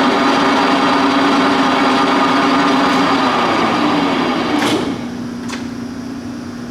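Leblond Regal engine lathe's geared headstock running steadily with the spindle at 544 RPM. The running sound drops in level about five seconds in, with a couple of short clicks around the change.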